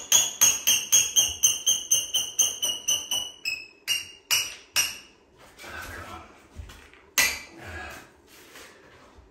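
Rapid hard tapping on shower floor tile, about four taps a second for three seconds, each with a bright ringing ping. It is followed by a few slower, spaced taps at a slightly lower pitch and some softer knocks.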